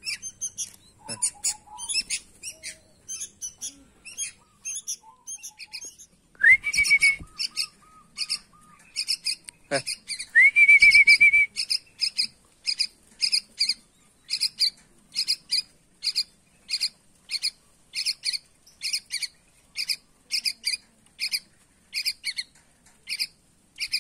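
Young bulbul begging for food: short high chirps repeated about twice a second, with two louder calls that rise and hold near the middle.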